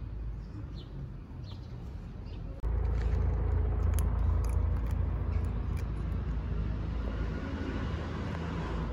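Low rumble of street traffic, which jumps louder about two and a half seconds in, with faint crisp clicks of a cat crunching dry kibble.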